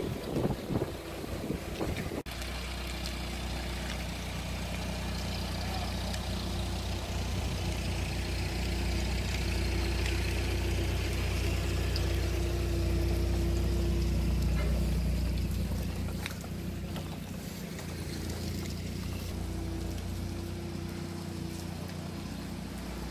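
Forklift engine running steadily while it moves a bundle of steel beams. It grows a little louder toward the middle and drops back about two-thirds of the way through.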